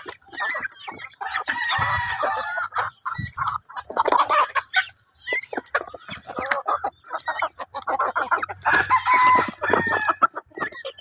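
A flock of chickens clucking busily at close range, with a rooster crowing twice: once about two seconds in and once near the end.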